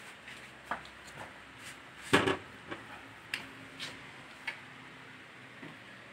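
Scattered light taps and knocks from handling the boxed treadmill and its packaging. The loudest is a short knock cluster about two seconds in, and the taps stop after about four and a half seconds.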